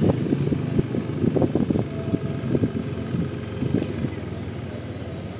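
Motorcycle engine running at low speed with wind buffeting the microphone, getting quieter toward the end as the bike eases off.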